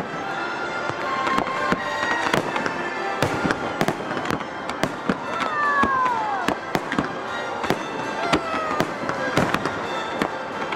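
Fireworks display going off in rapid succession: many sharp bangs and crackles, with two falling whistles partway through. Broadway show music plays underneath from the show's sound system.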